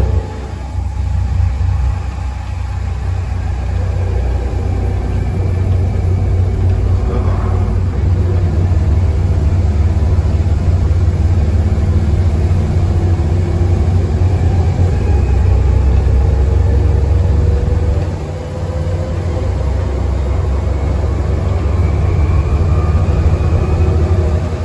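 Volvo B7TL double-decker bus's six-cylinder diesel engine thrashing hard under acceleration, heard from inside the passenger cabin. Its pitch climbs steadily with speed and drops back briefly about half a second in and again about 18 seconds in before climbing once more.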